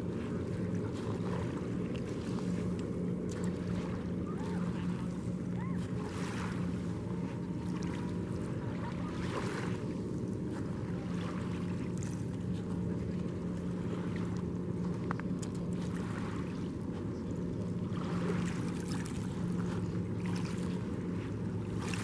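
Outdoor shoreline ambience: wind gusting on the microphone over a steady low engine drone.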